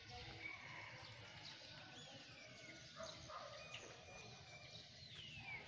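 Faint bird calls: two falling whistles, one about two seconds in and one near the end, with scattered short chirps over a low rumble.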